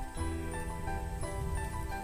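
Soft background music: a gentle melody of held notes over a low bass.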